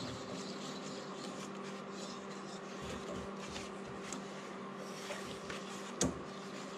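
A hand-turned tap wrench running a 5/8-inch tap through freshly cut threads in a Wisconsin VH4D crankshaft to clean them out. It makes faint metal clicks and scrapes over a steady hum, with one sharper click near the end.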